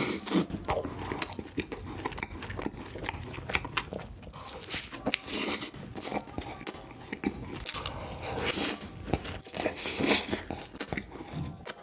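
Close-miked eating: crunchy bites and chewing in irregular bursts, the loudest crunches about five, eight and a half and ten seconds in.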